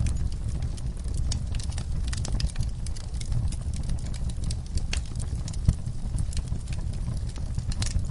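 Wood fire burning in a fireplace: a steady low rumble of flames with irregular crackles and pops, one sharper pop a little past the middle.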